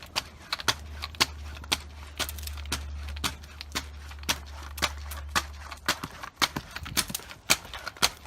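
Pogo stick bouncing steadily, a sharp click on each landing about twice a second, over a low steady drone that fades out about six seconds in.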